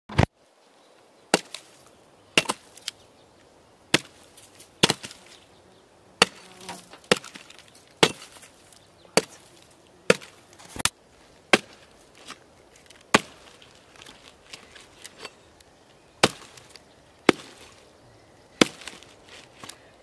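Axe chopping into a rotten, crumbling log, landing sharp blows roughly once a second. Some blows are followed by a smaller knock, and there is a longer pause about two-thirds of the way through.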